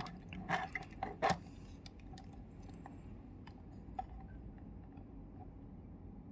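A handful of light clicks and taps in the first second and a half, then a few faint ticks, from multimeter test probes and a small electrolytic capacitor being handled for a capacitance test.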